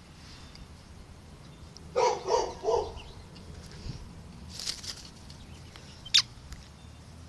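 Small terrier barking three times in quick succession about two seconds in.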